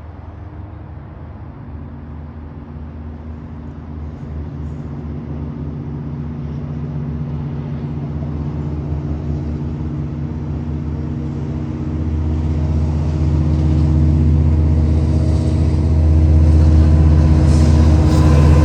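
Long Island Rail Road diesel-hauled train with bilevel coaches approaching. The locomotive's diesel engine gives a steady low hum that grows steadily louder, and a hiss of wheels on rail builds in over the last few seconds.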